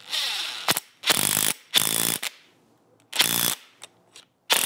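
DeWalt 20-volt Atomic 1/4-inch cordless impact driver hammering in repeated short bursts of about half a second, screwing a replacement fitting into the end of a rubber air compressor hose.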